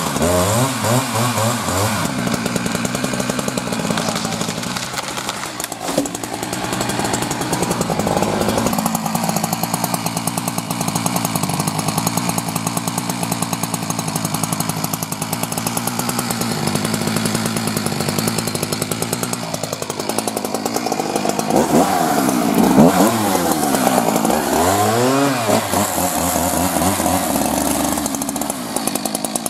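Husqvarna 372XP two-stroke chainsaw running hard while cutting wood, its engine pitch rising and falling as the throttle is worked. The pitch swings come repeatedly in the last third.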